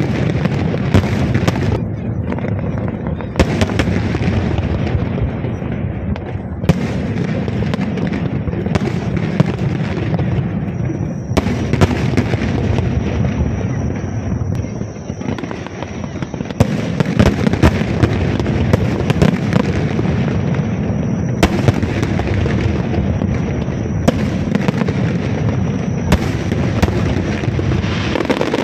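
Aerial fireworks bursting one after another in a dense, continuous barrage of bangs over a steady low rumble.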